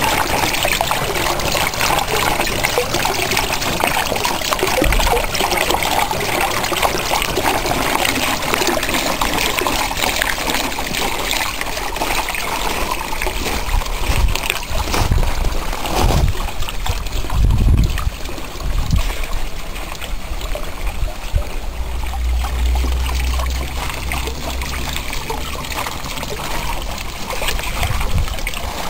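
Water trickling and splashing steadily from a garden pond water mill's outlet into the pond, with a few short low rumbles about halfway through.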